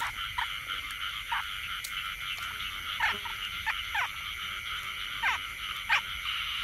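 Frog chorus in the early rainy season: a steady high-pitched hum of many calling frogs, with single short calls that drop sharply in pitch, coming every half second to second, more of them in the second half. The frogs are out at night to feed and pair up for spawning.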